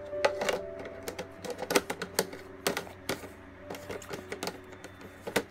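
A run of irregular sharp plastic clicks and clacks, like a plastic weatherproof box and its lid clips being handled, over soft background music.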